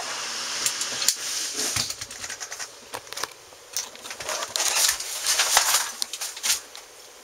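Close-up rustling and scattered clicks of handling, coming in two louder patches.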